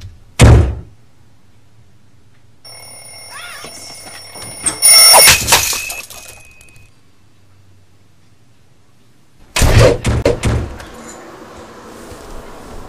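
A sharp thunk, then an alarm clock rings for about four seconds, with a loud crash partway through as the clock hits the floor and breaks. A few seconds later comes a quick run of heavy thuds.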